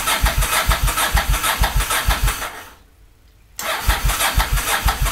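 A cold motorcycle engine being cranked by its electric starter in an even, rhythmic chug without catching. The cranking stops about two and a half seconds in, leaves about a second of quiet, then starts again. The battery is running down.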